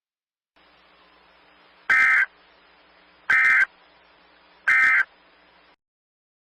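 Three short bursts of Emergency Alert System SAME data tones, about a second and a half apart: the end-of-message code that closes an EAS bulletin. Faint hiss and hum sit underneath.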